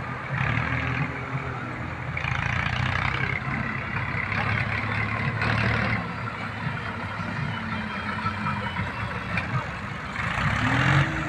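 Heavy diesel engine running steadily, swelling louder several times as it works under load. Near the end it revs up with a rise in pitch.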